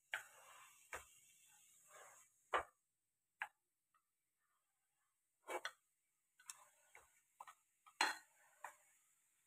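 Wooden chopsticks knocking against a metal pan while stirring food: about ten irregular sharp clicks, with soft rustling of the food being moved between some of them.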